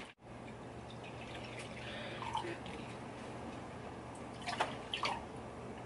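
Orange cream juice drink being poured from a plastic bottle into glasses, a quiet steady pour with a couple of brief taps near the end.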